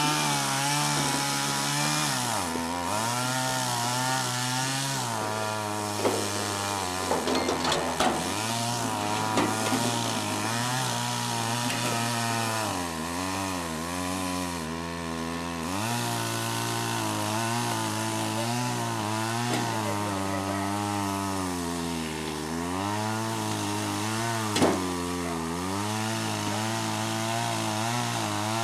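Small two-stroke engine, most likely a chainsaw, running throughout. Its speed steps up and down repeatedly and wavers as if under varying load, with a few sharp clicks along the way.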